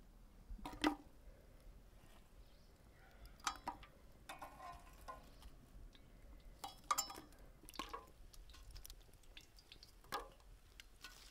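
Sparse, sharp light clicks and clinks at irregular intervals, with a short ringing about halfway through. Near the end, tongs clink inside the firebox of a metal samovar as it is being stoked.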